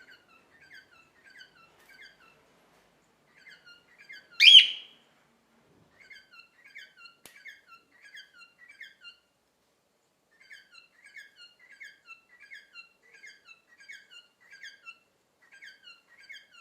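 Cockatiel chirping in quick runs of short, high chirps with brief pauses between runs, and one much louder call about four and a half seconds in.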